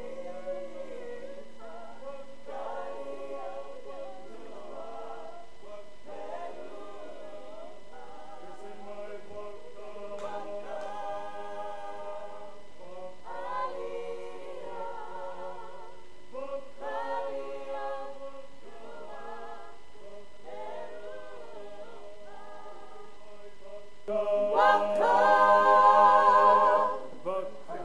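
A small group singing unaccompanied in held phrases with vibrato. It swells much louder for a few seconds near the end.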